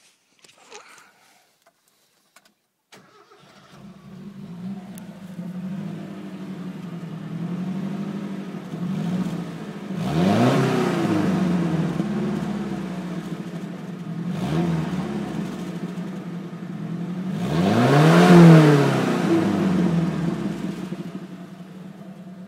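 1987 Mazda B2000's four-cylinder engine with a straight-piped exhaust starting about three seconds in, then idling steadily. It is revved three times, each rev rising and falling quickly: a sharp one near the middle, a small one, and the biggest near the end.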